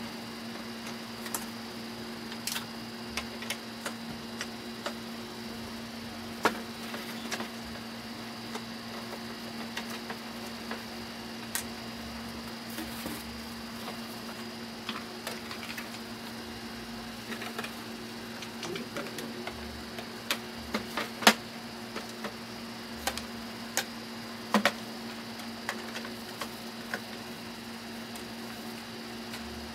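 Irregular sharp clicks and knocks from hands handling a hard plastic toy cash register and its cardboard packaging, the loudest about two-thirds of the way through, over a steady electrical hum.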